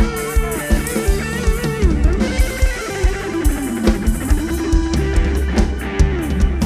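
Instrumental break of live lam sing dance music: a bending, gliding lead guitar line over a steady drum-kit beat of about three hits a second.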